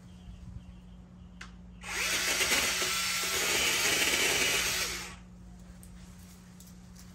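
Vanpore cordless mini chainsaw running for about three seconds as it cuts thin, hard woody branches. It starts and stops abruptly.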